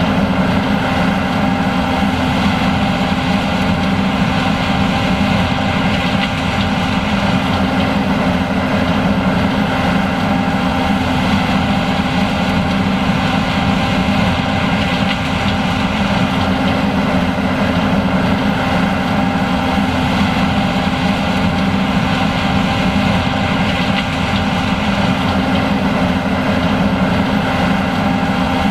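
John Deere S780 combine running steadily while harvesting corn, a constant machine drone with several steady pitches and no change in speed.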